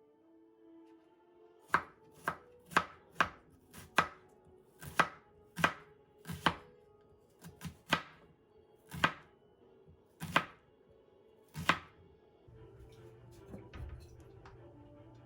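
Kitchen knife chopping on a cutting board: about fifteen sharp, unevenly spaced chops over some ten seconds, then the chopping stops.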